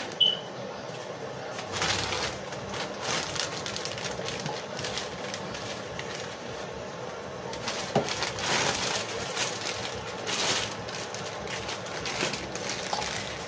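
A plastic bag crinkling and rustling in irregular bursts as it is handled and opened.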